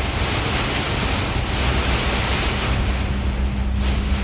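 Heavy rain falling in a steady hiss, with wind buffeting the microphone. A faint low hum comes in about three seconds in.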